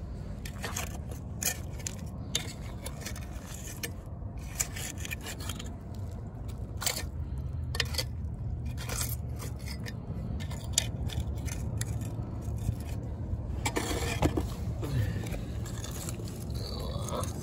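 Metal tines of a long-handled garden claw scraping and clicking against stones and gravel in half-frozen mud, in irregular strokes over a steady low rumble.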